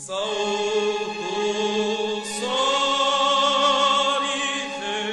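Mixed church choir singing sustained chords. A fuller, louder entry comes about two seconds in, held with vibrato, then eases off near the end.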